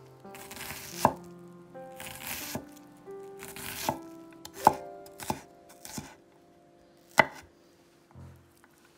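A chef's knife chopping diced onion on a wooden cutting board: irregular strokes through the onion with several sharp knocks of the blade on the board. The chopping stops about seven seconds in.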